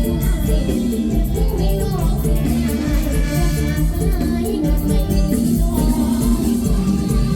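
Music with a steady beat, pitched melody lines and fast shaker-like percussion, with some singing.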